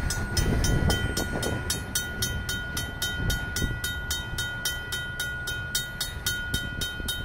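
RACO mechanical grade-crossing bell ringing at about four strikes a second, over the low rumble of covered hopper cars rolling past and away.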